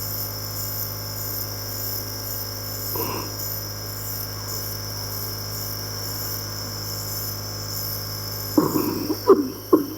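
Compressor nebulizer running: a steady low hum with a constant high hiss. A few short, louder sounds come near the end.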